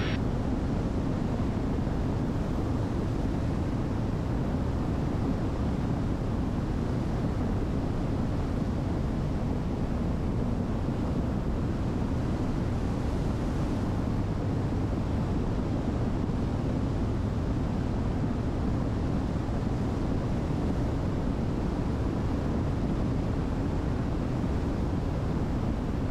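Steady drone of a light aircraft's engines and airflow in cruise flight, deep-pitched and unchanging.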